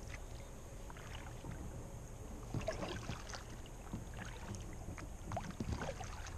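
Kayak paddle strokes in calm creek water: small splashes and drips in two clusters, about two and a half and five and a half seconds in. A low steady rumble runs underneath.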